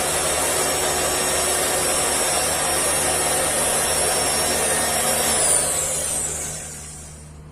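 Electric rotary fabric cutter's motor running with a steady high whine, then switched off about six seconds in, its pitch falling as it winds down.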